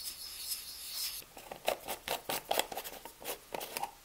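A cloth rubbing over a stained pine screwdriver handle for about a second, then a run of light taps and clicks from handling.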